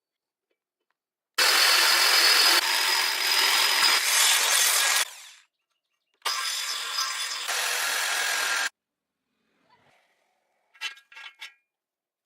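Angle grinder cutting steel, running in two long stretches of a few seconds each that start and stop abruptly, followed near the end by a few short clicks.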